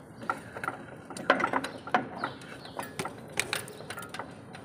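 Irregular sharp metallic clicks and knocks of hand-tool work on a truck's chassis, many separate strikes with no steady rhythm.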